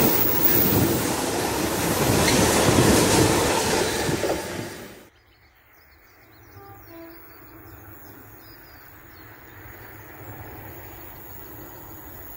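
Freight train of bogie flat wagons loaded with rails passing close at speed, the wheels rumbling and clacking over the track. About five seconds in it cuts off suddenly to a much quieter outdoor background that grows slightly louder near the end.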